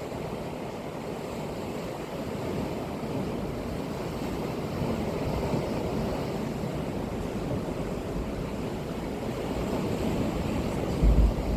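Sea waves washing onto the shore, a steady rush that swells and eases. A brief low rumble comes near the end.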